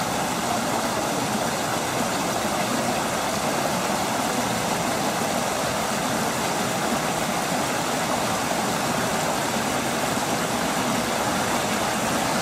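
Small rock waterfall pouring into a pond, a steady rush of splashing water.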